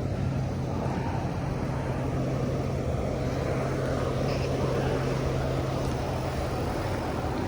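Steady low motor drone with a constant hum.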